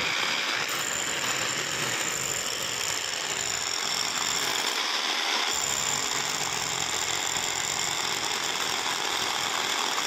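Electric rotary hammer drill boring holes into a masonry wall: a steady, dense hammering rattle.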